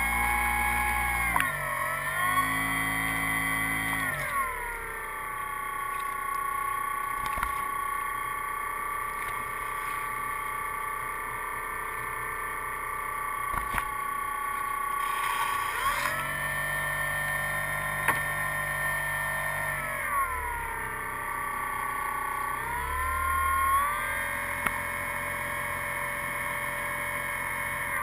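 A student-built air boat's propeller motor running with a steady whine, its pitch falling and rising several times as the throttle is eased and opened again.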